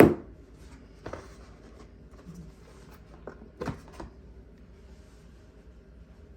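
Handling noises: a short rasping scrape right at the start, then a few soft knocks, one about a second in and a small cluster between three and four seconds in, over faint room noise.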